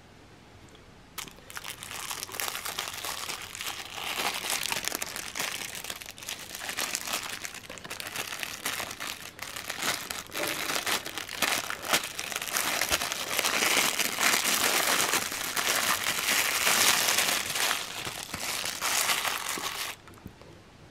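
Clear plastic wrapping crinkling and rustling as hands pull a wristwatch out of its bag, starting about a second in and stopping just before the end.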